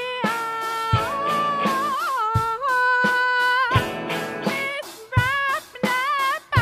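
Live band music: a held, bending melody line with vibrato over guitar, with a low drum hit about every second and a half.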